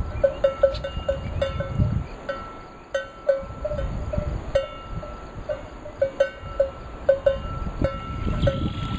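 Irregular, repeated bright metallic pings, a few a second and all at the same pitch, over a low rumble that rises and falls.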